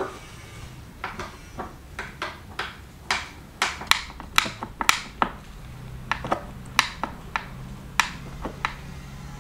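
Sharp clicks and knocks of metal on wood as nails are worked loose from the slats of a wooden shipping crate. They come in a quick, irregular series, thickest around the middle.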